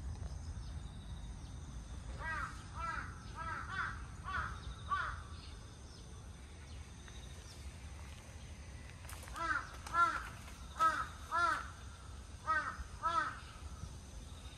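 A crow cawing in two runs of short repeated caws, roughly two a second, the first about two seconds in and the second about nine seconds in, over a low steady background rumble.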